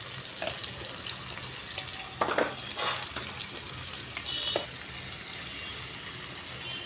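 Onions and ground spices sizzling in hot oil in a pan: a steady frying hiss, with a few brief knocks around the middle. The sizzle eases a little about five seconds in.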